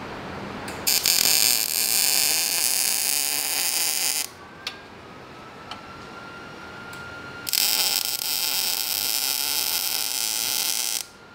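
Arc welding on steel: two welds of about three and a half seconds each, a steady crackling hiss that starts and cuts off sharply, with a quieter pause of about three seconds between them.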